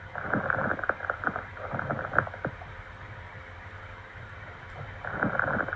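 Lung crackles (rales) heard through a stethoscope: clusters of short clicking, bubbling pops in two breaths, one over the first couple of seconds and the next starting near the end. Crackles are linked with fluid or secretions in the lungs, as in pneumonia, pulmonary edema, pus or bleeding.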